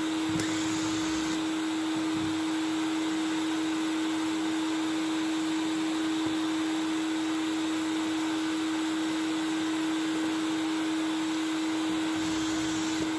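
Shop vacuum dust extractor running steadily: a constant rush of air with an unchanging motor hum.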